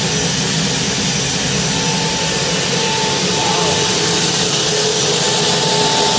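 Gas turbine engine idling: a steady rushing noise with a steady high whine, growing a little louder about four seconds in.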